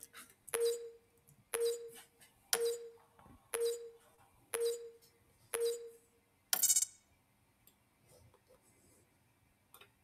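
A steady series of six short electronic pings, one about every second, each a sharp click with a brief ringing tone, then a single harsher buzzing tone about six and a half seconds in.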